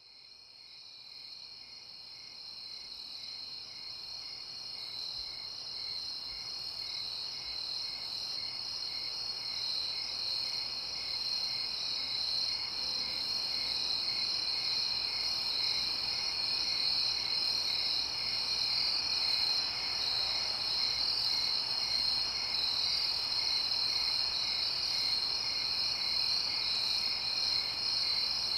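A steady, high-pitched chirring ambience that fades in from silence over about the first ten seconds, then holds level.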